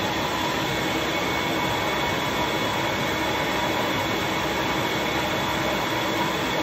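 Steady, unbroken whir of an electric motor, with a faint even hum in it.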